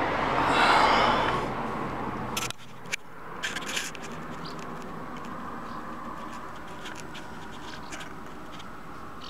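Honda motorcycle engine running with a steady low hum that swells about a second in, then stops abruptly about two and a half seconds in. After that there are only light clicks and scrapes of the camera being handled.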